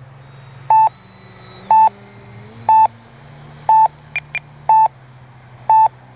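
RC transmitter's flight timer beeping about once a second, counting down the last seconds of a 5-minute timer, each a short mid-pitched beep. Two quicker, higher beeps come about four seconds in, over a faint steady hum.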